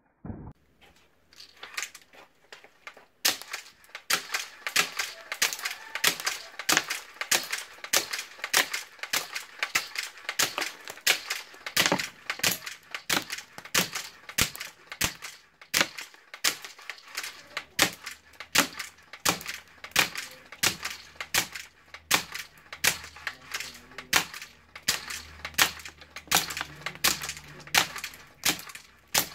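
Rapid fire from a pump-action wooden slingshot crossbow: 5 mm steel balls cracking into a wooden block, a sharp crack about two to three times a second, starting a few seconds in and running on without pause.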